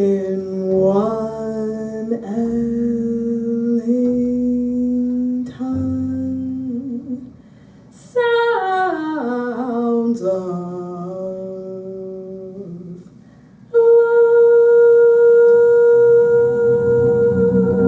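A singer humming a wordless melody of held and sliding notes over a double bass, with a quick descending run about eight seconds in and a loud long-held note near the end.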